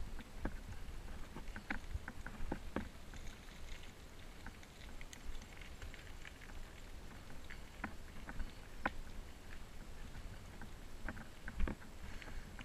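Bicycle riding uphill over a cracked, patched concrete path: a low rumble with scattered, irregular clicks and knocks as the bike rattles over the rough surface.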